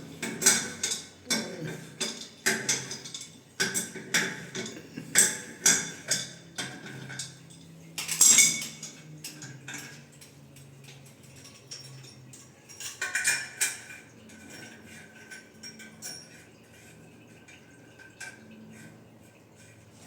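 Metal plumbing fittings and tools clinking and knocking as they are handled, about one or two sharp clinks a second for the first half, then fainter, with a short burst of clinks about two-thirds of the way through.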